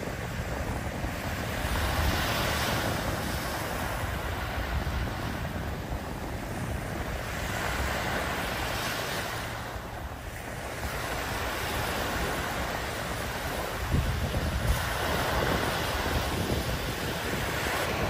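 Small waves breaking and washing up a sandy beach, the surf swelling and ebbing every few seconds, with wind rumbling on the microphone.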